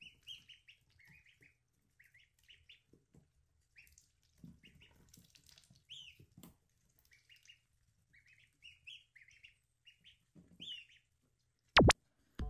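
Young ducks peeping: short, faint, high chirps, several sliding downward, in quick clusters throughout. A loud, sharp double knock near the end.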